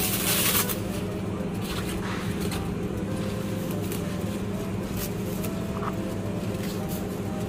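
A thin plastic produce bag rustles briefly at the start as a head of iceberg lettuce is handled. Under it run a steady low hum and soft background music.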